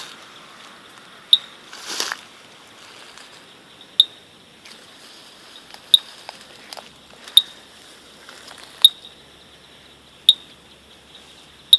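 Sharp, high clicking calls from an unseen night animal, one about every one and a half seconds, like someone knocking on wood. Locals take the animal for a pointed-shell snail. A faint steady high hiss of night insects runs under the clicks.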